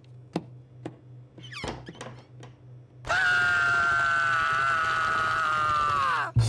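A few soft thumps, then a cartoon dog's long, high scream held for about three seconds, its pitch sagging just before it cuts off.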